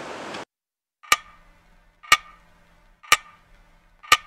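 Clock ticking once a second, four sharp ticks with the last one doubled, in dead silence. The outdoor background sound cuts off abruptly about half a second in, the mark of an edited-in clock-tick sound effect.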